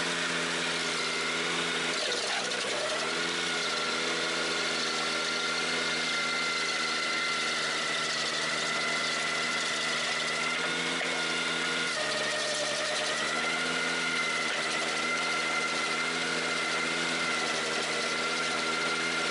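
Ventrac 4520Z tractor engine running steadily while driving the KC180 stump grinder, with a steady high whine over it. The engine's pitch sags briefly about two seconds in as it takes the load of the cut, then recovers, and shifts slightly again about twelve seconds in.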